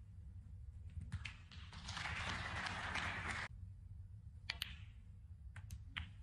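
Snooker balls clicking: the cue tip striking the cue ball and balls knocking together, a few sharp clicks, the loudest about four and a half seconds in. Around two seconds in, a short spell of audience applause cuts off abruptly.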